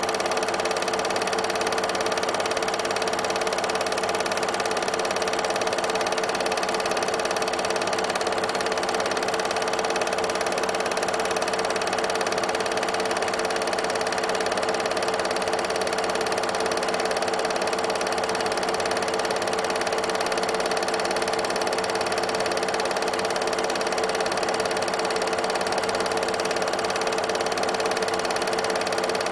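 8mm film projector running steadily: a constant mechanical hum of its motor and film transport, unchanging throughout.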